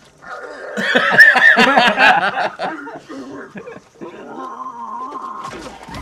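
Movie soundtrack of a man yelling and groaning in an animal-like way as he squeezes out of a rhinoceros's rear end, loudest about a second in, then fading.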